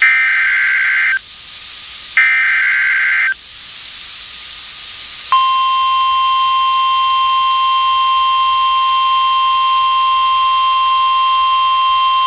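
Emergency Alert System SAME header data bursts, about a second each, twice with a one-second gap. About five seconds in, a steady alert tone starts and holds unbroken: the weather radio attention signal announcing that an alert message follows.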